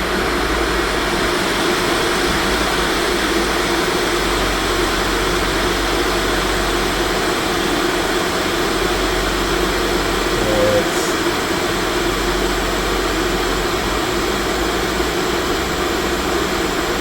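Hot air rework station blowing steadily, a constant rush of air.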